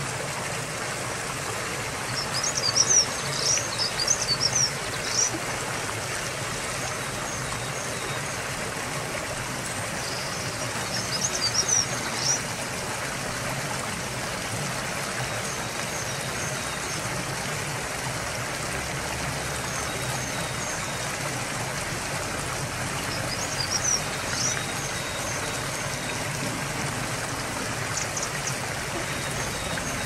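Stream water rushing steadily over a small weir. A songbird sings short high, twittering phrases above it about two seconds in, again around ten seconds, and twice more near the end.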